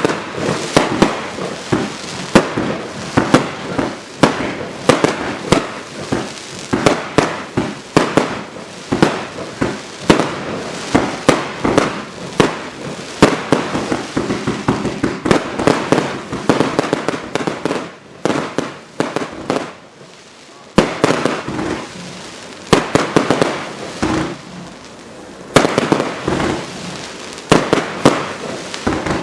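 Gemstone Black Widow 75-shot firework barrage firing: a fast run of sharp bangs, two or three a second, over a dense hiss. The shots let up for a couple of seconds about two-thirds of the way through, then fire again.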